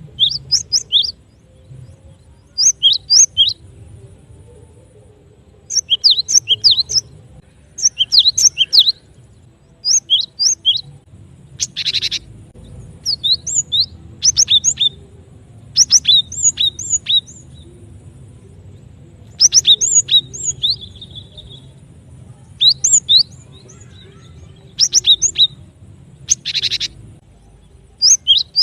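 Recorded calls of the cinereous tit (gelatik batu), used as a bird-trapping lure: short bursts of quick, sharp high chirps repeated every second or two. Two harsher buzzing calls, each about half a second long, come about 12 s and 27 s in.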